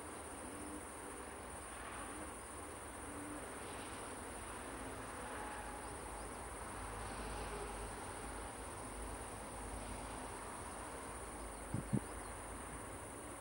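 Crickets chirping in a steady high trill, over a faint low rumble, with two short bumps about twelve seconds in.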